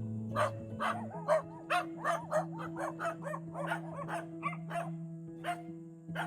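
Background music with sustained chords that change about a second in, over a quick run of short, repeated animal calls, several a second.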